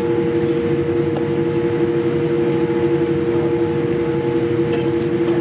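Cabin noise of a Boeing 787-8 airliner taxiing after landing: a steady hum with two held tones over a low rumble.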